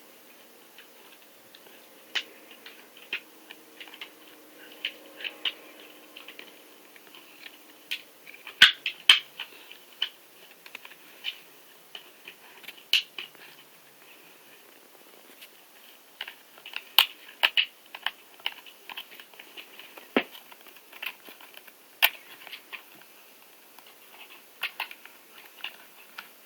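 Siberian husky gnawing on a pork-hide chew bone: irregular crunching and clicking of teeth on the chew, in uneven clusters with short pauses.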